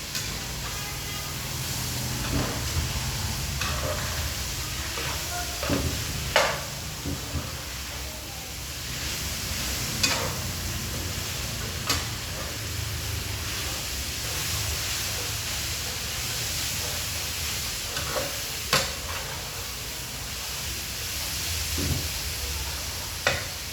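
Food sizzling steadily as it is stir-fried in a pan, with a few sharp clinks of a utensil striking the pan now and then.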